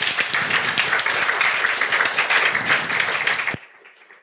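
Audience applauding, a dense patter of many hands clapping that cuts off abruptly about three and a half seconds in.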